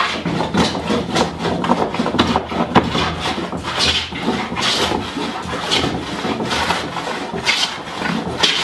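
Hand plane shaving a wooden board in repeated quick push strokes: a scraping hiss of the blade cutting wood, about one stroke a second, taking off thin shavings.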